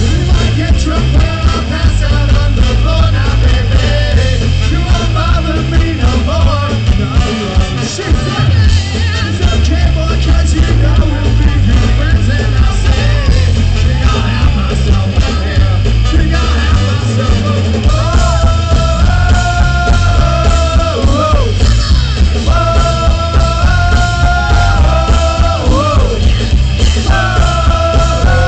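Live ska-punk band playing loudly, with electric guitars, bass guitar and drum kit and no vocals. About two-thirds of the way through, the trumpet and trombone join in with long held notes in harmony.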